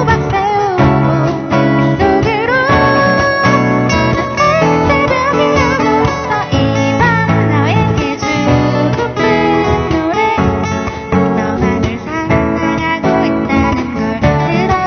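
A hobby band playing a song live: acoustic guitar strumming under a melody line that slides between notes. The song is one still in practice, with some rough spots.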